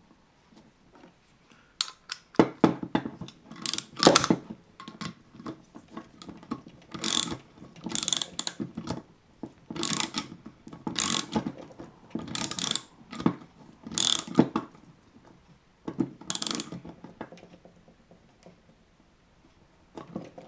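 Socket ratchet clicking in about nine short bursts as a fitting is tightened into a Villiers S10 carburettor body, each burst the pawl ratcheting on a back-swing of the handle. The fitting sits on homemade gasket-material washers meant to seal it petrol tight.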